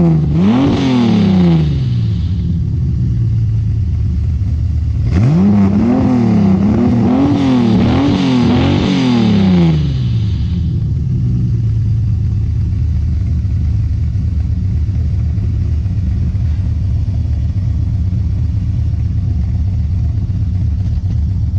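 Datsun 280Z's custom-built L28 straight-six breathing through an Abarth 240Z muffler, revved once near the start, then blipped four times in quick succession from about five seconds in, settling to a steady idle in between and afterwards.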